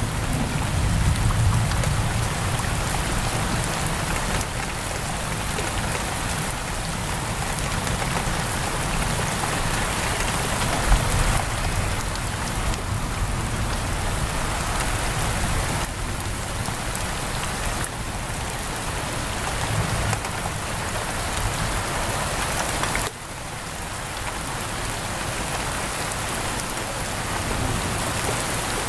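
Steady heavy rain pattering on a window, with a low rumble of thunder near the start and one sharp pop partway through.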